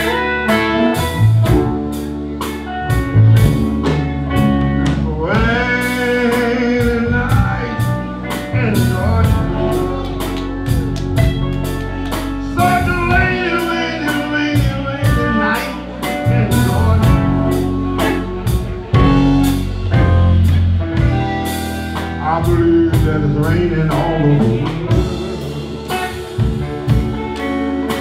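Slow blues played by a live band of hollow-body electric guitar, electric bass and drums, with a harmonica taking a solo of long, bending notes in phrases over the beat.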